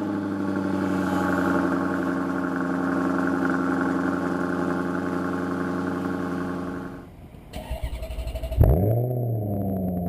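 Maserati GranTurismo V8 idling steadily through its aftermarket MC Sportline exhaust, just after start-up. About seven seconds in the sound drops away. Near the end the engine is started again with a sharp flare of revs that settles back to idle.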